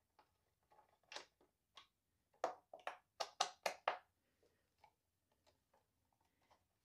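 Sharp clicks and taps of a small hand driver with a T20 bit working the front bumper screws of a Onewheel Pint loose, with a quick run of about six louder clicks in the middle.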